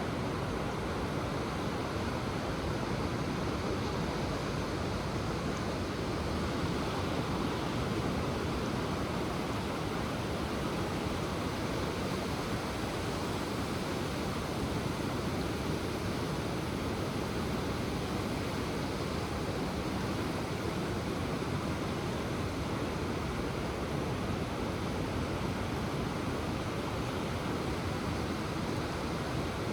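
Ocean surf breaking on the shore, heard as a steady, even wash of noise with no single wave standing out.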